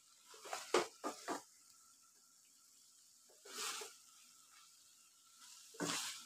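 Wooden spatula stirring and tossing boiled noodles through meat masala in a frying pan, making short scrapes and squelchy rustles against the pan. The sounds come in three short bunches: about a second in, midway, and near the end.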